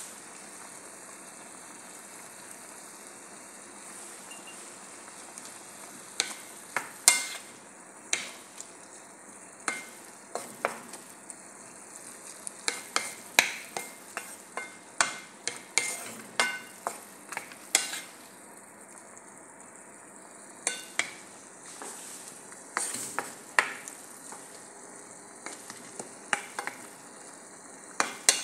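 Sliced cabbage, carrot and green pepper sizzling steadily in a non-stick frying pan. From about six seconds in, a wooden spatula stirs them, knocking and scraping against the pan in many sharp, irregular clacks, which are the loudest sounds.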